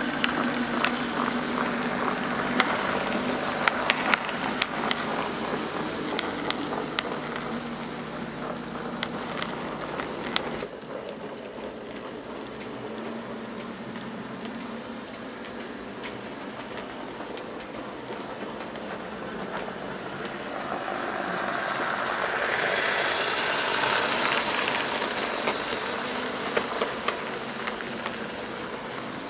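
OO gauge model trains running on the layout's track. Their wheels click over rail joints above a steady low motor hum. After a cut about ten seconds in, a train grows louder as it runs past close by, a rushing rattle that peaks about two-thirds of the way through and then fades.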